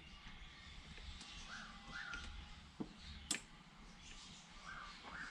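Light metallic clicks from small screws and a hand tool being worked on a throttle body assembly, two sharp ones close together about three seconds in. Two pairs of short faint chirps sound, early and again near the end.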